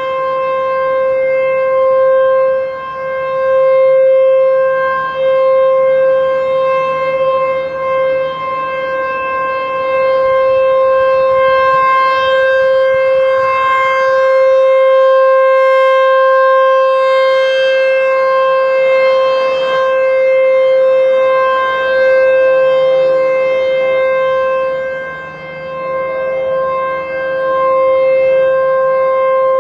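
ASC T-128 electronic siren sounding its steady-tone Alert signal: one unwavering pitch with strong overtones. The loudness swells and dips as the rotating speaker head turns toward and away, with marked dips a few seconds in and again near the end.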